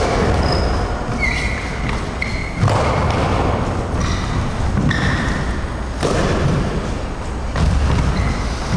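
Stick-sparring footwork on a wooden squash-court floor: irregular heavy thuds of feet and blows, with short high sneaker squeaks in between.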